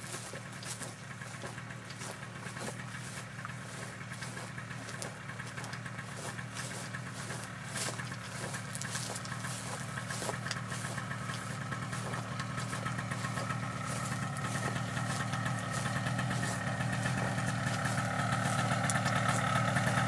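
A small engine idling steadily, growing gradually louder.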